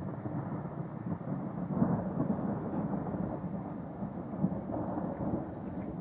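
Thunder rolling in a long low rumble, swelling to its loudest about two seconds in and rumbling on unevenly.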